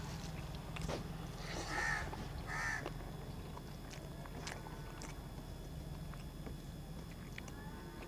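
A crow cawing twice in quick succession about two seconds in, with a few faint clicks of fingers on a steel plate.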